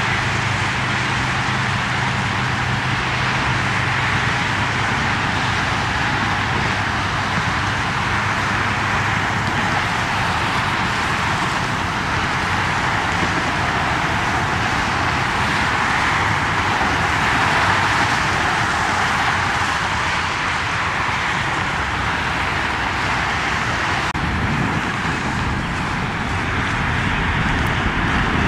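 Jet airliner engines heard from a distance as a steady rushing noise, swelling slightly about halfway through and gaining a low rumble near the end.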